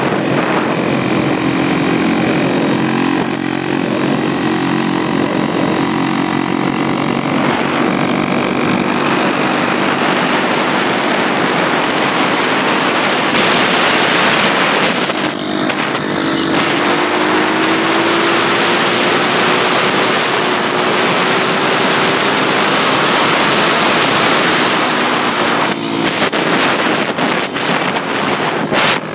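Pit bike engines (125 cc and 140 cc) running at speed on the road, heavily mixed with wind noise on the microphone. Partway through, an engine note rises as a bike accelerates, and near the end the wind buffets the microphone roughly.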